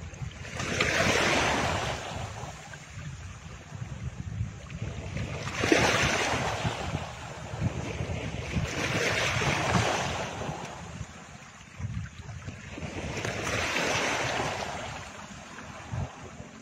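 Rushing noise like surf on a shore, swelling and fading four times about every four seconds over a steady low rumble.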